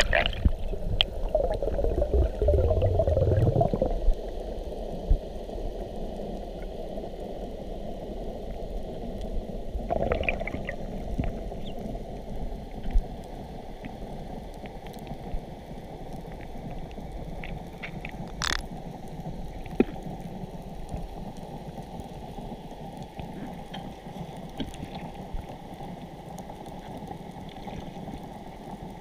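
A freediver's duck-dive and descent heard underwater: splashing and bubbling for the first four seconds or so, a shorter bubbly burst about ten seconds in, then a steady muffled underwater rush with a few faint clicks.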